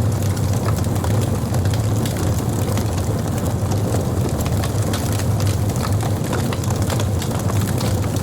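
Wood campfire burning: a steady low rumble with frequent small crackles and snaps of burning wood scattered throughout.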